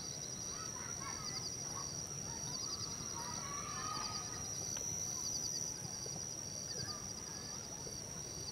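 Nature ambience of birds and insects: a steady high-pitched insect drone, short trilled chirps repeating about once a second, and scattered warbling bird calls over a soft background hiss.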